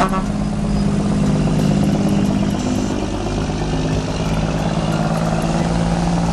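A vehicle engine running steadily, with an even low hum.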